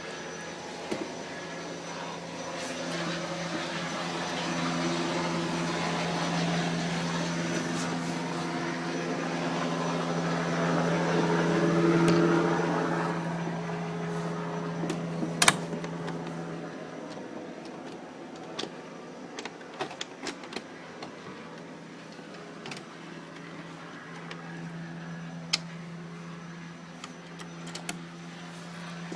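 Helicopter drone overhead, growing louder to a peak about twelve seconds in and then fading, with a few sharp clicks, the loudest about fifteen seconds in.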